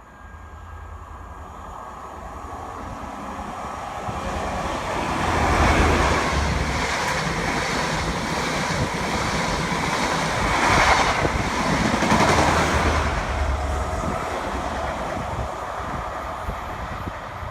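A train passing through the station: its rumble builds over the first few seconds, swells loudest twice near the middle, then slowly fades away.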